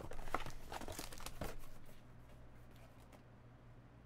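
A cardboard trading-card box being opened and its foil-wrapped card pack pulled out and handled: a run of crinkles and rustles, mostly in the first two seconds.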